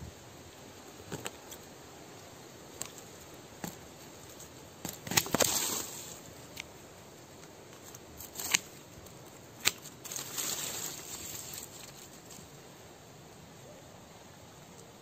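Hand pruning shears snipping through serut shoots and roots: several sharp snaps a few seconds apart, the loudest about five seconds in, with rustling of dry leaf litter and scratching in soil around the middle.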